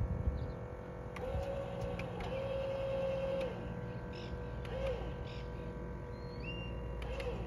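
Electric trailer tongue jack motor whining in short runs of about a second, starting and stopping as it is jogged up and down to set the coupler on the hitch ball.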